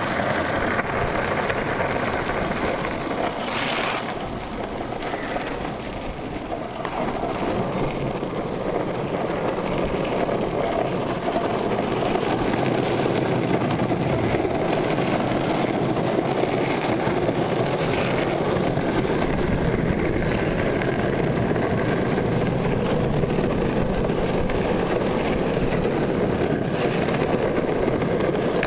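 Longboard wheels rolling over rough, cracked asphalt: a steady gritty rumble. It dips slightly about four seconds in and builds back by about eight seconds.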